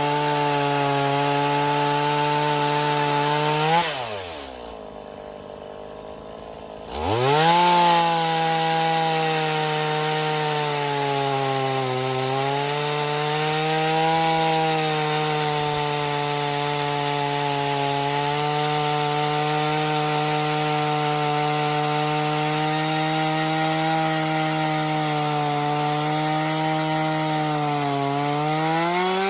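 Stihl MS170 small two-stroke chainsaw at full throttle, ripping lengthwise through a log with a budget aftermarket chain. About four seconds in the throttle is let off and the engine falls to idle for about three seconds. It is then revved back up and keeps cutting, its pitch sagging a little under load now and then.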